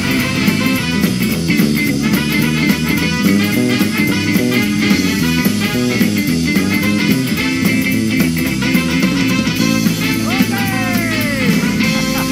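Live house band playing an upbeat rock instrumental on electric guitar, keyboard and drums, with a few sliding notes about ten seconds in.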